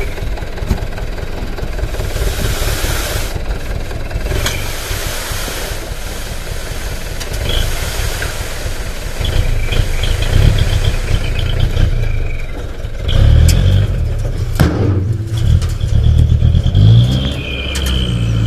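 Truck's diesel engine idling and revving up several times, getting louder in the second half, with one sharp knock about two-thirds of the way through.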